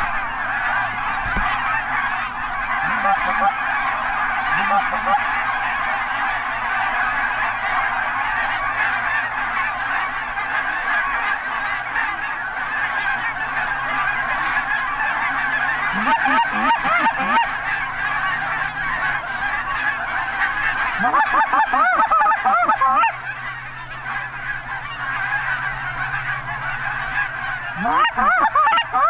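A large flock of geese honking continuously, many birds calling at once. Louder, closer bursts of honking come at about 16 s, again around 21 to 23 s, and near the end.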